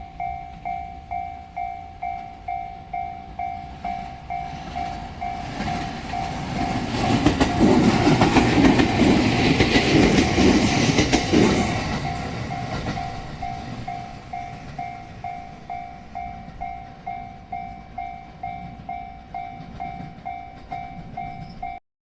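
Japanese level-crossing alarm dinging rapidly and evenly, a little over twice a second, as a train passes over the crossing. The train's rumble and wheel clatter build from about five seconds in, are loudest for about four seconds, and fade away while the alarm keeps ringing.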